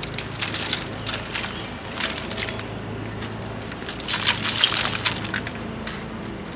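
A hand stirring and scooping a dry granular fertilizer mix (organic fertilizer, Epsom salt and azomite rock dust) in a red plastic bucket, making gritty rustling and crunching in several bursts.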